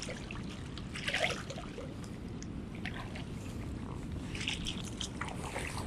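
Shallow seawater sloshing and trickling around wading boots in the surf, with a few short splashy bursts over a steady low rush.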